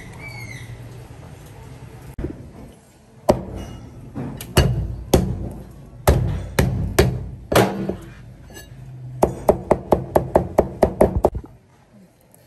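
Cleaver chopping on a wooden board: single heavy chops spaced half a second to a second apart, then a quick run of about a dozen chops, some six a second, near the end.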